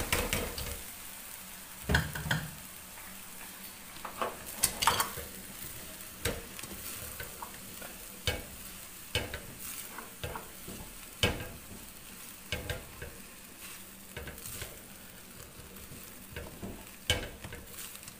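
Boiled rice being stirred and tossed with scrambled egg in a frying pan: irregular scrapes and knocks of the spatula against the pan over a steady low sizzle of frying.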